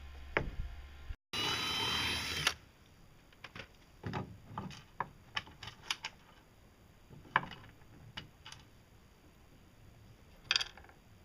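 Irregular light clicks and metal taps as a bent stainless steel strap clamp is fitted and bolted around a pole arm. A loud second-long burst of noise with a thin high whine comes near the start.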